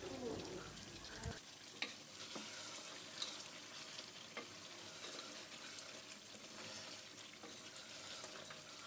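Duck meat curry being stirred with a wooden spatula in a pot, sizzling faintly with a few light knocks of the spatula against the pot. The meat is at the end of its bhuna (kasha) stage, its liquid cooked off so it fries in the thick spice paste.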